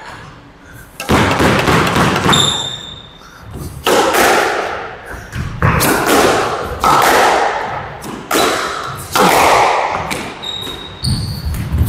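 A squash rally: racket strikes and the ball smacking off the court walls, roughly once a second, each hit ringing briefly in the court. Short high squeaks of shoes on the court floor come between the hits.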